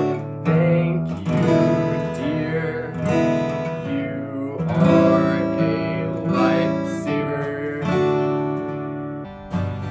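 Music with a strummed acoustic guitar, its chords changing every second or so.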